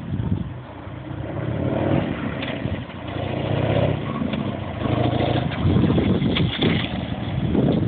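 Harley-Davidson Sportster's V-twin engine running as the motorcycle is ridden past, the sound rising and falling several times with throttle and distance.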